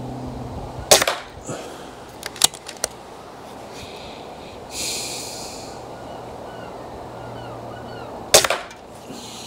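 Reximex Lyra .22 PCP air rifle fired twice, about seven and a half seconds apart, each shot a sharp crack. Each shot is followed by a few lighter clicks of the side-lever action being worked, and a brief hiss comes about halfway between.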